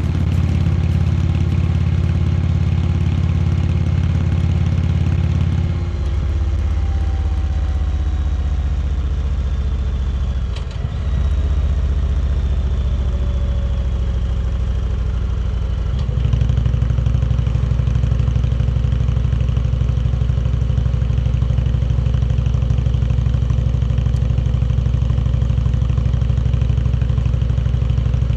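Indian Chieftain Dark Horse's big air-cooled V-twin running steadily. Its note shifts about six seconds in, dips briefly near the middle, and turns louder and fuller about sixteen seconds in.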